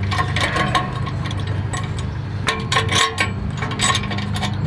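Metal clinks and taps as 2.5-inch steel exhaust clamps are worked onto the outlet pipes of a Flowmaster muffler, in a few scattered clusters. A steady low hum runs underneath.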